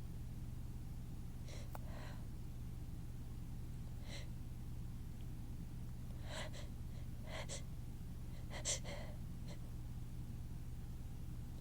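A person's short, hitching gasps as a sneeze builds but stays stuck: about eight breathy catches, several in quick pairs, the strongest about nine seconds in. A steady low hum runs underneath.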